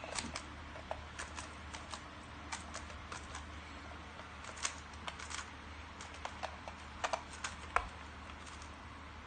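Plastic layers of a GAN 3x3 speed cube being turned quickly during a timed solve: short, irregular clicks and clacks, several a second, over a steady low hum.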